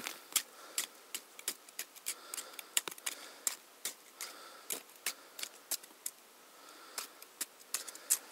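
Irregular sharp clicks and clinks, a few each second, of hands breaking and scooping a thin skin of fresh overnight ice out of an ice-fishing hole.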